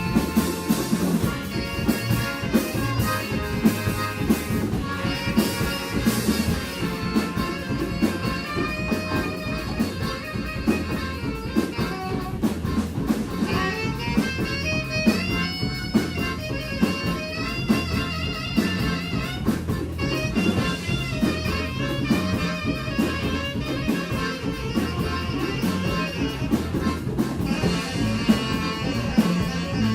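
A live band playing an instrumental number, with drum kit and guitar keeping a steady beat under a melodic lead line.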